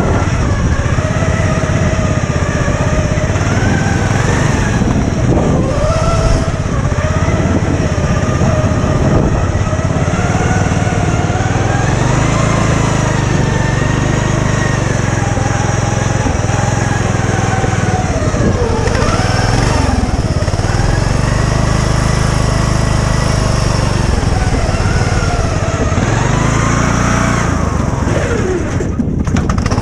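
Riding lawn mower's small engine running continuously, its pitch rising and falling as the throttle and speed change, with a brief drop near the end.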